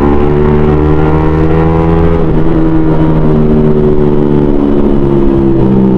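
Yamaha Sniper 155 single-cylinder motorcycle engine through a loud TRC aftermarket exhaust, running at speed with its pitch sagging slowly. There is no backfire popping.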